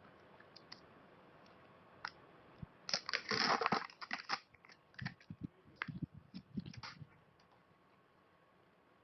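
Small clicks and light taps of parts and tools being handled during a phone repair, with a brief crackling rustle about three seconds in.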